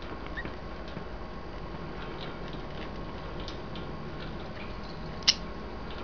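Faint scattered clicks and ticks from budgies feeding beak to beak on a wire cage ladder, with one sharper click about five seconds in.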